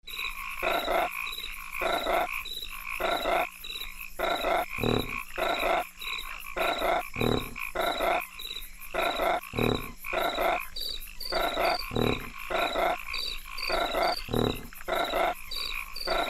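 Frogs croaking in a steady rhythm, about two croaks a second. About eleven seconds in, short high insect chirps come in, in pairs.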